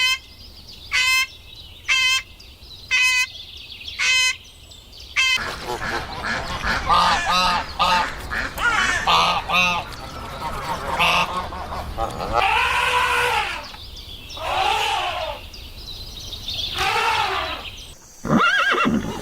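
Domestic geese honking: five short calls about a second apart, then a long series of honks from several birds.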